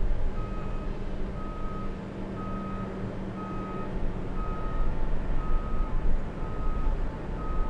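Reversing alarm of an airport ground-service vehicle on the apron, beeping steadily about once a second, over a low rumble.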